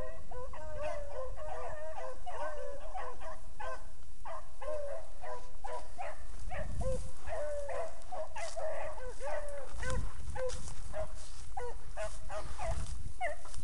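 A pack of beagles in full cry running a rabbit, many short overlapping bays and yelps going on without a break.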